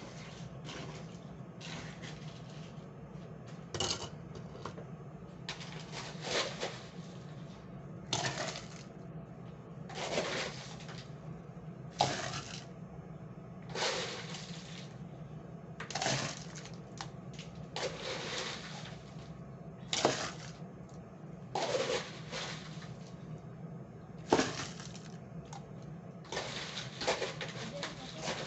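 Drink-making clatter: short clinks and scrapes of utensils and containers, a burst about every two seconds, over a steady low hum.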